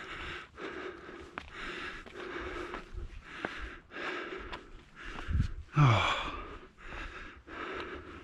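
A hiker's heavy breathing while climbing a steep rock slope, about two breaths a second. About six seconds in comes one louder gasp with a falling groan.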